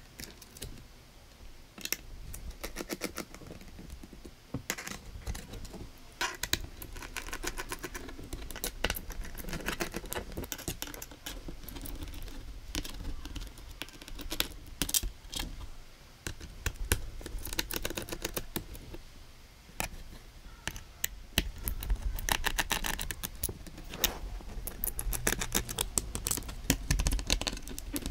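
Phillips screwdriver backing out the bottom-panel screws of an Asus ROG G513Q laptop: a long run of small, rapid clicks and ticks of the bit on the screws and the plastic case.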